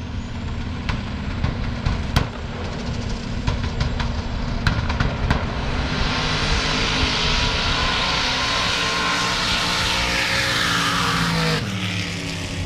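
Drag-racing cars' engines rumbling at the start line, with a few sharp cracks, then a loud full-throttle run down the drag strip from about six seconds in that drops away near the end.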